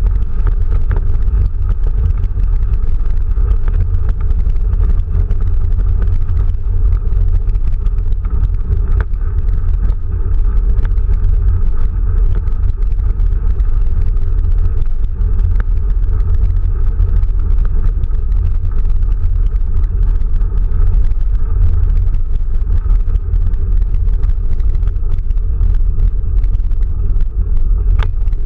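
Quest velomobile rolling along a rough country lane: the tyres' road noise drums through the gelcoated shell as a loud, steady low rumble, with scattered small clicks.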